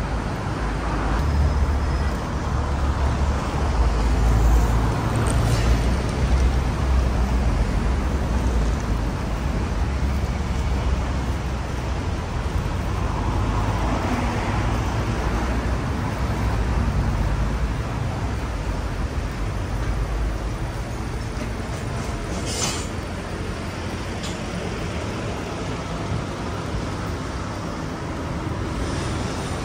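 City street traffic: vehicles passing with a steady low engine rumble, swelling briefly about halfway through. A short sharp sound stands out about three-quarters of the way in.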